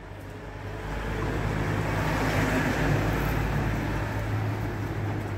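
Street traffic: a vehicle passing, its noise swelling and then fading over a few seconds, over a steady low hum.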